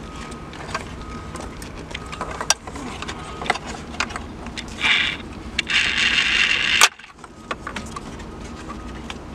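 Plastic clicks and knocks from handling a Cadillac CUE radio center stack while its wiring connectors are unplugged from the back, with a short scraping rustle about five seconds in and a longer, louder one around six seconds in.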